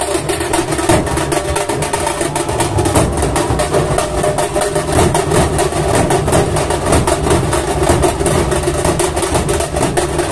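Dhol-tasha troupe drumming: many dhols and tashas playing a loud, fast, unbroken beat of dense strokes.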